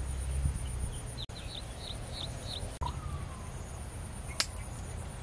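Rural ambience: a steady high insect drone, with a quick run of about six falling chirps from a small bird about a second in. A faint falling whistle follows, then a single sharp click near the end.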